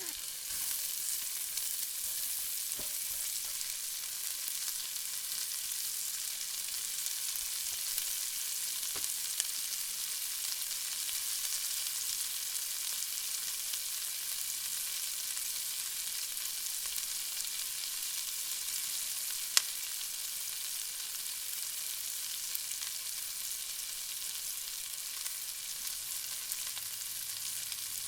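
Onions frying in hot oil in a pan, a steady high sizzle with occasional pops, one sharper pop about two-thirds of the way through.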